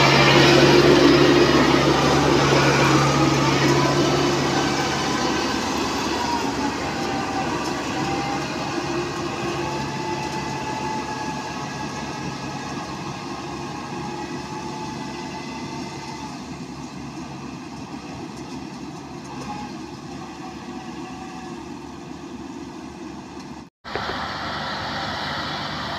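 Yanmar AW70V crawler combine harvester's diesel engine running steadily with the rattle of its crawler tracks as the machine drives away, the sound fading gradually. The sound cuts out for an instant near the end.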